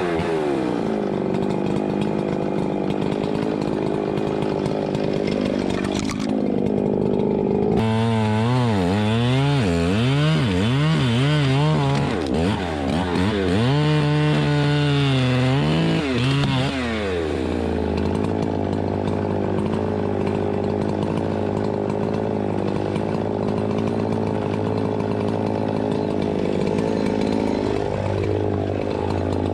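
Chainsaw running, its engine note steady at first, then swinging up and down for several seconds in the middle as it works through wood, then steady again. It is a worn, neglected saw whose chain-adjusting screw has fallen out.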